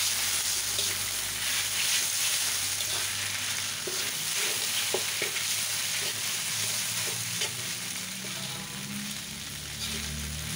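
Mee goreng noodles sizzling in a large wok as a metal spatula stir-fries them, with scattered scrapes and clacks of the spatula against the wok over a steady high sizzle.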